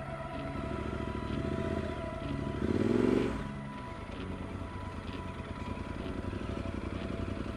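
Yamaha Super Ténéré's parallel-twin engine running at low speed as the motorcycle rolls slowly over grass, with a brief rise in revs about three seconds in.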